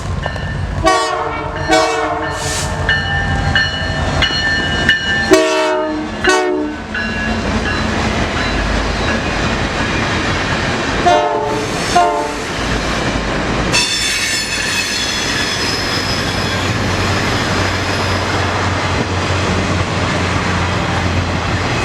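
Diesel locomotive air horn sounding a series of blasts, mostly short with one longer one, over the first dozen seconds. The train then rolls past with a steady rumble and wheels clicking over the rail joints.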